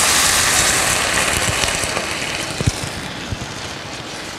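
Mushroom broth poured into a hot pan of sautéed rice and vegetables, hissing and sizzling loudly as it hits the pan, the sizzle dying down over a few seconds. A few light knocks come as the spatula stirs it near the end.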